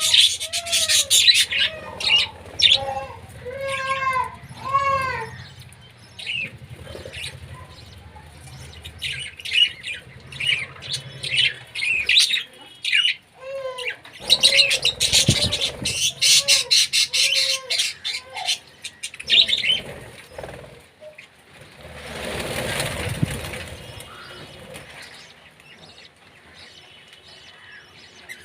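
Birds calling with repeated short, arched rising-and-falling calls mixed with rapid sharp chirps and clicks, in two bouts. A rushing burst of wing flapping comes a little past the middle.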